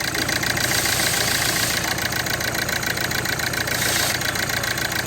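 Hyundai i20 diesel engine idling with a steady, fast pulsing beat while misfiring on cylinder 3, whose injector circuit is open, so pulling that injector's connector changes nothing. A brief hiss rises over it twice.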